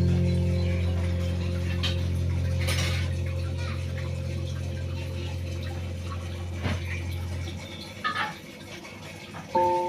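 Background music: a low held note slowly fading away over about seven seconds, with a few faint clicks. A new melodic phrase starts near the end.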